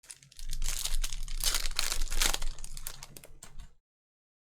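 Crinkling and rustling of a foil trading-card pack wrapper being handled and ripped open, an irregular crackle that cuts off suddenly near the end.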